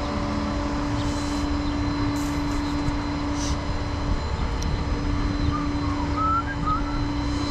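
Vehicle engine idling: a steady low rumble with a constant hum.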